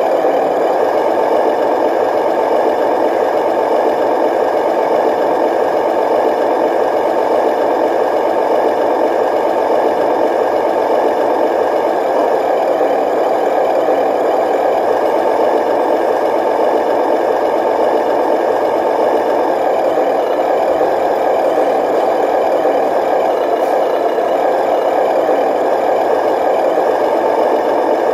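Steady diesel truck engine sound running at an even, unchanging level with a rattle, the simulated engine noise of an RC model truck.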